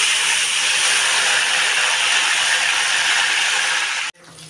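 Chopped onion with bay leaves, cinnamon and cardamom frying in hot oil in a karahi: a loud, steady sizzle as it is stirred with a spatula, cutting off abruptly about four seconds in.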